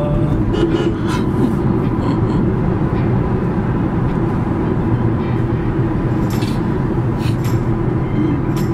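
Car cabin noise while driving: a steady low rumble of engine and tyres on the road, with a few faint clicks in the second half.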